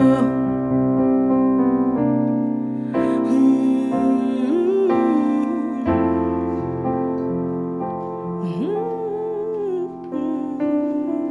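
Instrumental break in a slow worship song: sustained piano or electric keyboard chords that change every second or two, with a gliding melody line over them twice.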